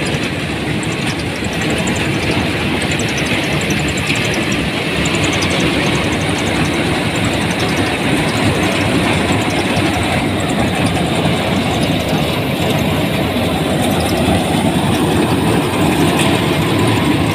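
Dasmesh harvester threshing mustard, its engine and threshing works running loud and steady under the load of stalks being fed in.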